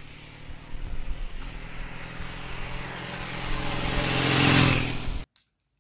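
Motorcycle engine running, growing steadily louder to a peak near the end, then cutting off abruptly.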